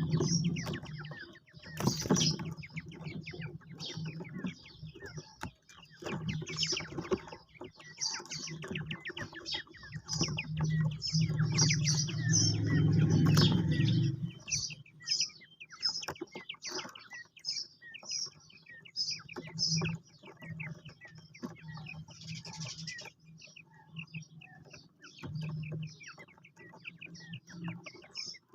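Quail chirping and calling in a dense run of short, high, repeated notes. Under it runs a low rumble, loudest about ten to fourteen seconds in.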